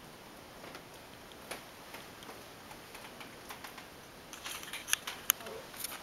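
Scattered light clicks and taps, with two sharp clicks close together about five seconds in, as someone steps in through a door holding the camera.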